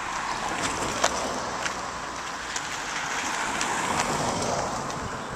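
Footsteps on an asphalt sidewalk give sharp clicks about one or two a second. Under them runs a steady rushing noise that swells and peaks about four seconds in.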